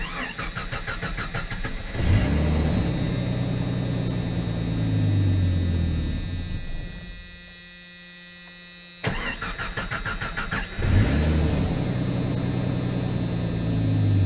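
1990 Jeep Comanche engine cranking on the starter, catching after about two seconds, running a few seconds and then dying. About nine seconds in it is cranked again, catches and runs again. This start-and-stall is, by the mechanic's theory, the fuel pump being fed only while cranking: with the ballast resistor unplugged, the pump loses power once the key returns to run.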